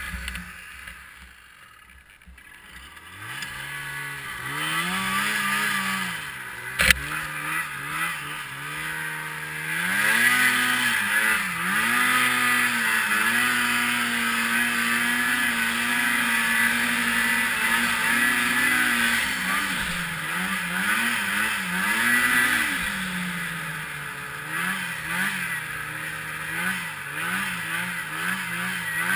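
Polaris IQ Shift 550 snowmobile's two-stroke twin engine, throttled down low in the first few seconds, then revving up and down and holding a steady high speed for several seconds before rising and falling with the throttle again. A single sharp knock about seven seconds in.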